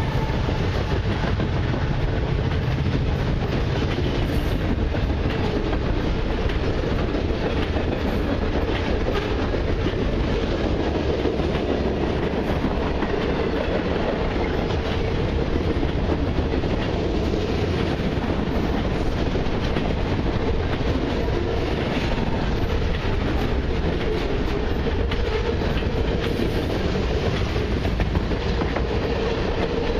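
Freight cars of a long mixed freight train rolling past: a steady rumble with the clatter of steel wheels on the rails, unchanging throughout.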